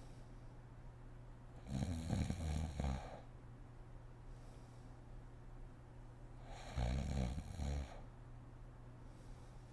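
A woman snoring in her sleep: two snores about five seconds apart, each lasting about a second, with faint breathing between them.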